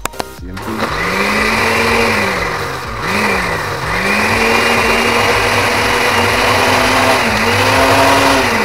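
Oster blender's motor grinding pieces of bread into crumbs in its glass jar. A couple of clicks, then the motor speeds up about a second in, slows and picks up again around three seconds in, runs steady, and winds down at the end.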